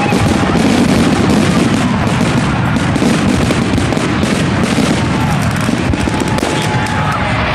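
Aerial fireworks going off in a dense barrage: overlapping bangs of shells bursting and rapid crackling, with no let-up.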